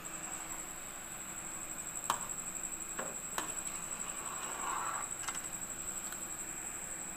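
A metal spoon clinks sharply against the side of a pan four times, with a brief scrape, while stirring a thick milk mixture. Under it runs a steady hiss and a thin high whine.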